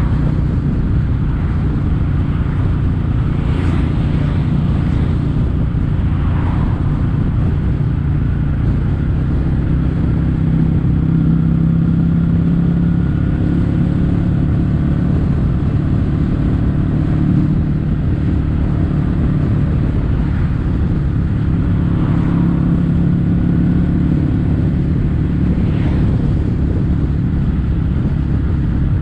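Kawasaki W800's air-cooled parallel-twin engine running steadily through stainless steel Cabton-style silencers while under way, with small rises and falls in engine speed.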